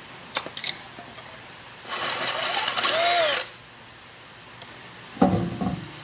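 Metal tool and wheel-hub work on a car wheel: a few light clicks, then a harsh whirring scrape of about a second and a half whose pitch rises and falls, and a heavy knock shortly before the end.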